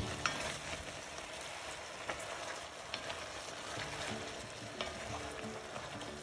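Chicken pieces sizzling in oil and their own juices in a pot while a spatula stirs and turns them, with a few light knocks of the spatula against the pot.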